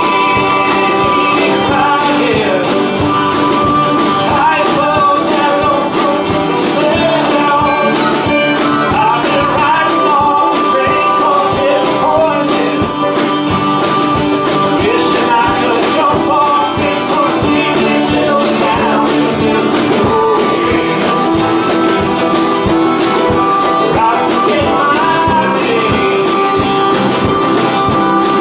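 Live band playing a song: acoustic guitar, harmonica and drum kit, with a man singing.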